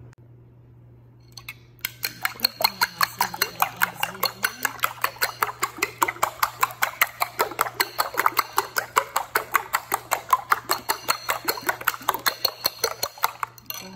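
Raw eggs beaten with a metal spoon in a white ceramic bowl: rapid, even clicking of the spoon against the bowl, about five strokes a second, starting about two seconds in and stopping just before the end.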